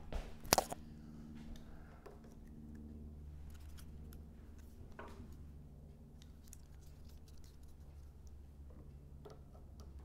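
Jumper-cable clamps and wires being handled and clipped onto the starter wiring: two sharp metal clicks about half a second in, then a few faint clicks, over a low steady hum.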